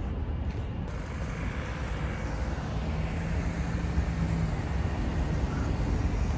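Steady city street traffic rumble, with a faint engine hum partway through.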